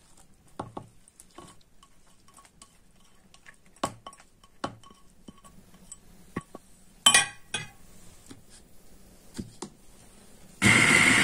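Light clinks and knocks of glass as rolled oats are tipped into a glass food-processor bowl and the bowl is handled, with one louder clatter partway through. Near the end the food processor's motor starts and runs loudly and steadily, coarsely blending the oats into the brownie batter.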